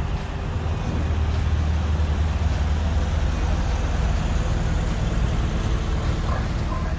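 Volkswagen Type 2 bay-window bus driving slowly past, its air-cooled flat-four engine running, loudest through the middle of the pass.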